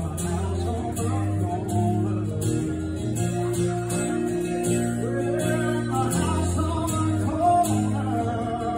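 Acoustic guitar strummed in a steady rhythm with a man singing over it, played live.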